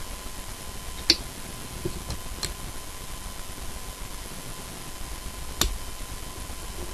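A few sharp clicks and taps from handling wires and tools at a soldering bench, the loudest about a second in and another a little after five seconds. Under them is a steady hiss with a thin high tone.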